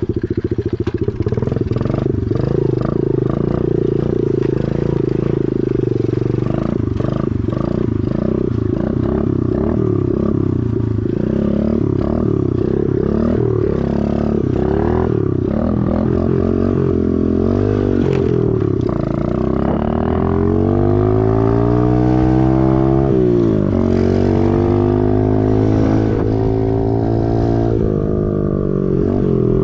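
Chinese pit bike's small single-cylinder engine being ridden, its note rising and falling as it is revved and shifted. After about twenty seconds it makes a long climb in pitch that drops off sharply, then climbs again. The bike is running well on its first test ride with the new carburettor and air filter fitted.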